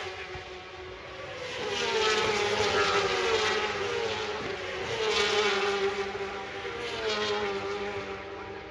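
Racing motorcycle engines at high revs going past on the circuit. The engine note swells and fades several times, loudest about two and five seconds in, and its pitch slides down and jumps back up with each gear change.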